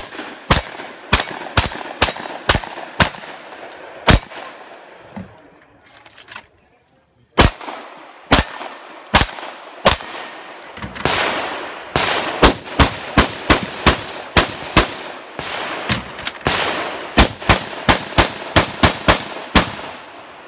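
Shotgun fired quickly about eight times, then, after a pause of about three seconds, a long string of pistol shots that speeds up to two or three shots a second.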